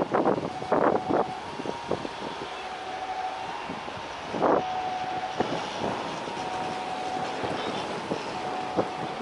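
Twin-engine jet airliner on the runway, its engines running with a steady whine over a rushing noise. Short bursts of noise come in the first second and again about four and a half seconds in.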